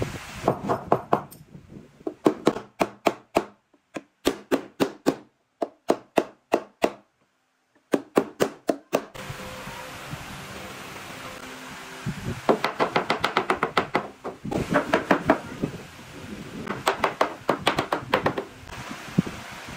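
Claw hammer tapping wooden bed-frame parts together, in quick runs of sharp knocks with short pauses between.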